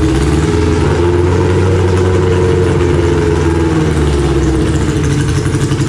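Car engine running at a steady idle, its pitch rising slightly through the middle and easing back down.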